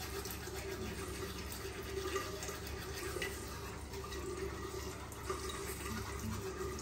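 Bathroom tap running a thin steady stream of water into a ceramic washbasin.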